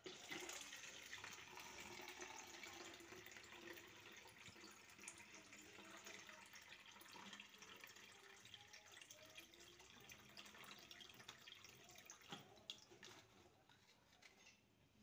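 Water running faintly from the plastic tap of a clay water jar into a plastic jug as it fills; the flow dies away near the end.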